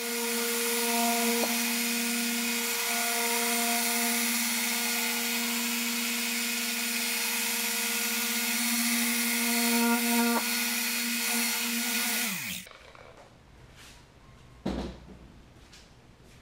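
Electric car polisher with a foam pad running steadily at speed 4 on car paint: a steady motor hum with a hiss over it. About twelve seconds in it is switched off and winds down, and a thump follows a couple of seconds later.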